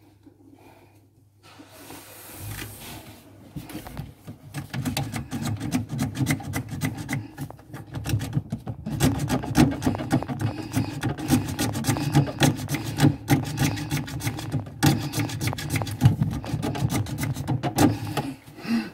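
Rapid back-and-forth rasping strokes of a hand tool worked by hand against a cupboard wall. The strokes start a few seconds in and run on with a couple of brief pauses.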